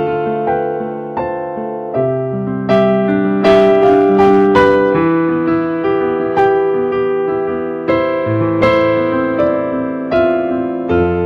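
Slow solo keyboard music in the sound of an electric piano: chords and single notes struck about once or twice a second, each left to ring and fade.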